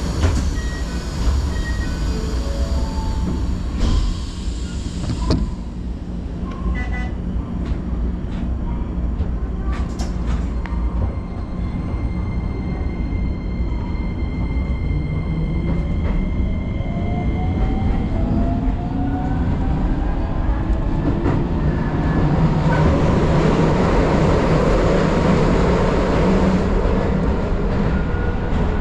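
A Keisei Line electric train pulls away from a station. After a few short tones and knocks, its traction motors start a whine that climbs in pitch as the train accelerates, and the running noise grows louder near the end.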